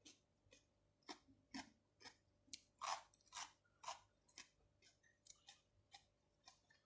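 Close-miked chewing of fresh shrimp and octopus with cucumber: sticky, wet mouth clicks and smacks, about two or three a second at an uneven pace.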